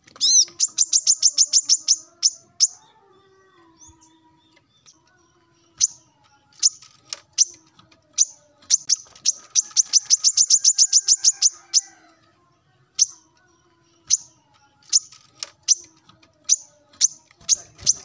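Male brown-throated sunbird singing: high, sharp repeated notes, run together into two fast trills of about a dozen notes a second, one at the start and one midway, with single chips between them. This is the male's lively song calling out a rival.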